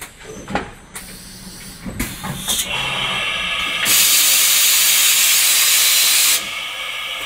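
Hurco BMC30 vertical machining center cycling through a tool change. A few mechanical clunks come first, then a loud blast of compressed air through the spindle for about two and a half seconds, cutting off sharply.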